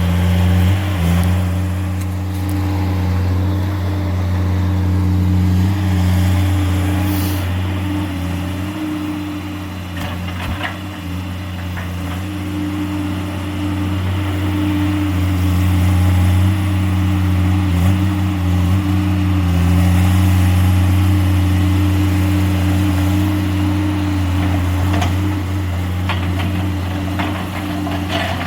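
Diesel engine of a piece of logging machinery running steadily, its level swelling and easing a little under changing load, with a few light clicks and knocks.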